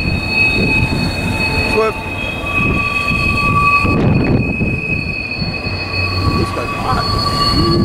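Intermodal freight train's cars rolling past with a continuous low rumble and several steady, high-pitched wheel squeals that fade in and out as the cars go by.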